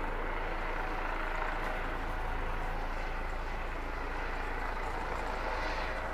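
Police helicopter flying overhead, its rotor and engine noise steady and continuous.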